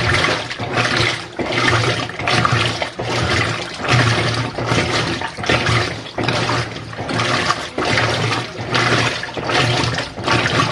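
Washing machine agitating on its delicate cycle: water sloshing in regular strokes about once a second, each with a low motor hum.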